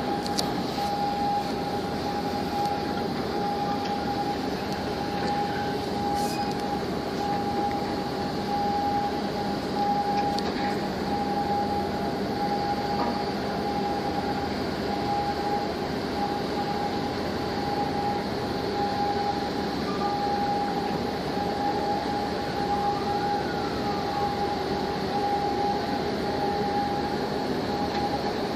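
Steady machinery drone from a large container ship passing close by, with a constant high whine running through it and a lower hum beneath.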